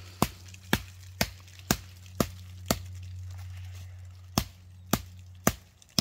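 Hatchet chopping into the trunk of a small cedar tree: sharp, evenly paced strikes about two a second, six of them, a pause of over a second, then three more.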